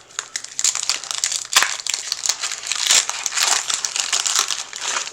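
Foil plastic wrapper of a Pokémon TCG booster pack crinkling and crackling as it is handled, a dense run of small crackles.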